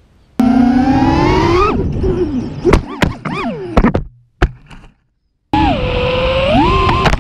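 FPV quadcopter's brushless motors whining and rising in pitch, then the pitch breaks up and wobbles as several sharp knocks of the drone hitting something ring out. After a couple of seconds of silence, a drone's motors whine again, the pitch swinging up and down with the throttle.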